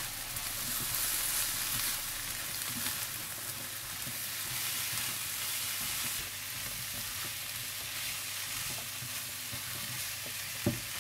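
Spiced potato and pea samosa filling sizzling as it fries in hot oil in a pan, stirred with a spoon that scrapes and taps now and then. A single sharper knock comes near the end.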